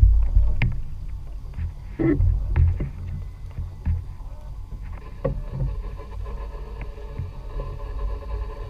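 Heavy, uneven low rumble of a small fishing boat at sea, with a few short knocks and bumps on the boat.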